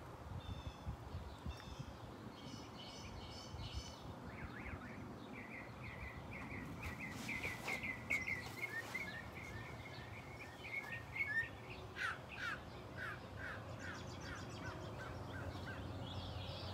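Songbirds singing: a long run of quick repeated chirps, then a series of short falling notes about twelve seconds in.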